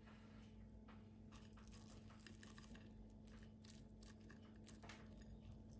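Faint crackling and tearing of crisp panko-breaded fried chicken tenders being pulled apart by hand, the crust crunching in a run of small irregular crackles.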